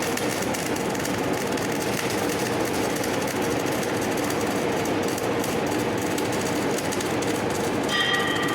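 Flux-cored arc welding in the overhead (4G) position: the arc crackles and sizzles steadily and densely, with a brief high tone near the end.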